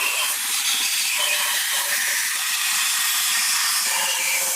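Steady, loud hiss of a high-pressure jet spraying without a break, such as is used to clean a diesel cylinder head.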